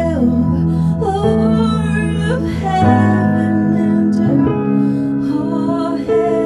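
Worship music with a woman singing over held keyboard or pad chords, the chord changing about three seconds in.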